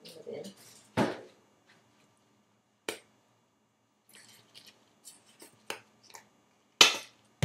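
Sharp clicks and knocks from a plastic bottle being handled in gloved hands. A strong knock comes about a second in and a louder one near the end, with a run of softer clicks in between.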